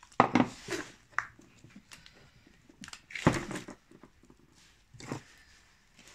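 Gloved hands handling a grease-packed inner CV joint boot on a driveshaft on a workbench. Three short bouts of rubbing and knocking, the middle one the loudest, with quiet between.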